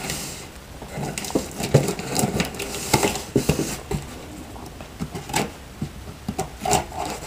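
A taped cardboard shipping box being handled and slit open: irregular scraping, rustling and light knocks on the cardboard.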